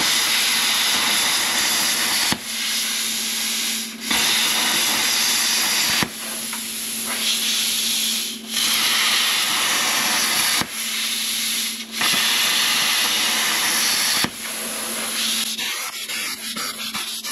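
Handheld air plasma cutter, a PrimeWeld Cut60, cutting slots in 1/8-inch stainless steel angle: a loud, steady hiss of arc and air in about eight runs of one to two and a half seconds, each stopping briefly as the torch is let off between slots. A faint steady hum runs under it, and the hiss dies down near the end.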